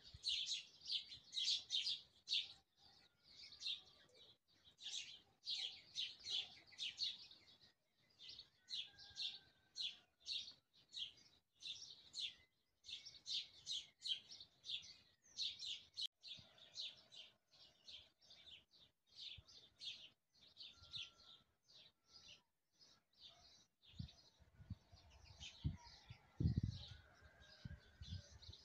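A small songbird chirping over and over, short high notes about two a second, faint. A low rumble comes in near the end.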